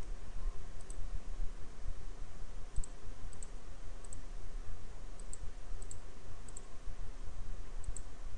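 Computer mouse button clicking about eight times, each a soft, short tick and several as quick press-and-release pairs, over a steady low hum.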